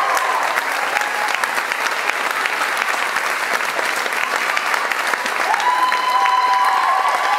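Audience applauding, a dense steady clatter of clapping, with a few high held whoops rising over it near the end.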